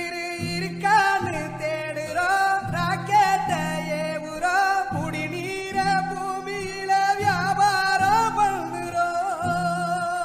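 A Tamil song: a voice singing a long, wavering melodic line over plucked guitar accompaniment.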